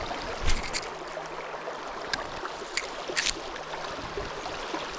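Mountain stream running steadily over rocks, with a few sharp clicks or knocks in the first few seconds, the loudest about half a second in.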